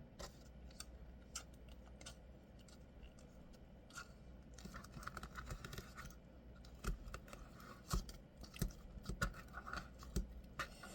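Soft slime being squished and pulled by hand: faint, irregular small sticky clicks and pops, coming thicker from about halfway through.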